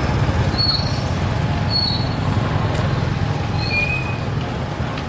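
Busy street-market ambience: a steady low rumble of traffic and crowd noise, with scattered short high-pitched chirps or squeaks.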